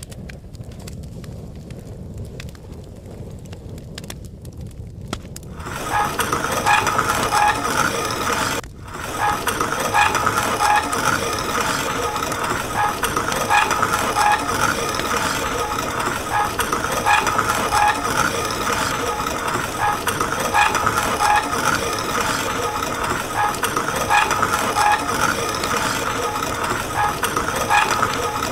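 Coffee beans clicking as they are tipped into the hopper of a rusty hand-cranked iron coffee mill. About six seconds in the crank starts turning and the mill grinds the beans with a loud, steady, even crunching, with a brief break near nine seconds.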